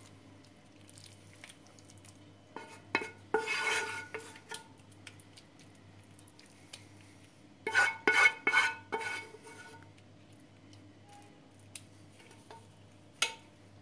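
Wooden spoon scraping a nonstick frying pan, with the pan clinking against a ceramic serving plate as the food is emptied out: two clusters of clinks and scrapes with short ringing, then one lone clink near the end.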